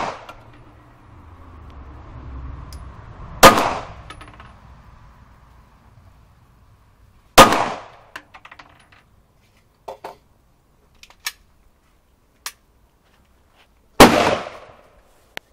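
Three 9mm pistol shots from a Glock 17, several seconds apart, each sharp and loud with a brief ringing echo. A few small clicks and knocks fall between the second and third shots.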